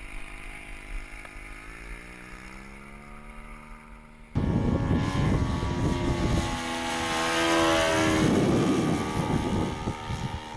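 An RC model airplane's engine and propeller. It runs steadily, then its pitch rises as it speeds up for takeoff. About four seconds in, the sound jumps abruptly louder and rougher, with wind buffeting, as the plane flies trailing smoke, its engine note rising and falling.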